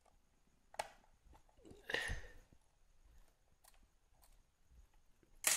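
Faint handling sounds as a tiny screw is driven into the plastic RAM cover on a laptop's underside: a light click about a second in, a short scuff about two seconds in, and a few soft ticks, with a sharper tap at the very end.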